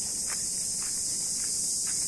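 Steady high-pitched drone of insects, with a few faint short taps over it.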